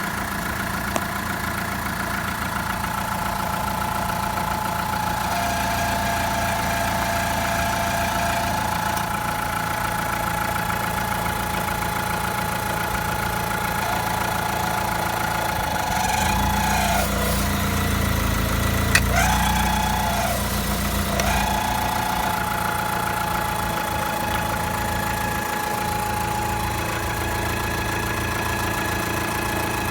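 Škoda Octavia 1.4 BCA petrol engine running with a steady high-pitched whistle from its crankcase ventilation (PCV) valve. The whistle appeared after the valve's diaphragm and O-rings were replaced, a sign of a faulty diaphragm letting air through. Near the middle the engine sound swells and the whistle dips in pitch twice before settling back.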